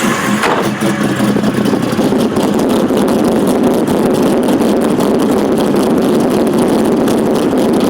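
LS2 stroker V8 engine running with a misfire. A high whine cuts off about half a second in, leaving a steady, rough engine sound.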